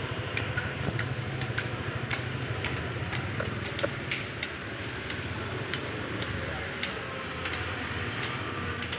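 Irregular sharp clicks and crackles of a clear plastic takeaway food container and plastic gloves being handled, several a second, over a steady low hum of background noise.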